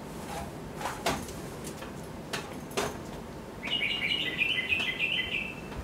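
A few light knocks in the first three seconds, then a small bird chirping in a quick run of high notes for about two seconds.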